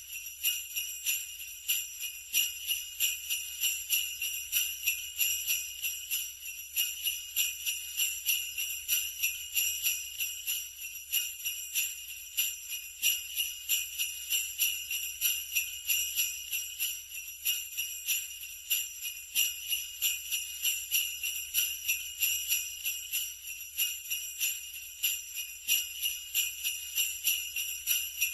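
Sleigh bells shaken in a steady, even rhythm: a bright metallic jingling that repeats a few times a second without a break.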